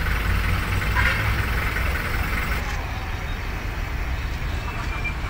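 Steady low rumble of several car engines idling in a queue, under a general outdoor noise haze. The high hiss in the background drops away suddenly about halfway through.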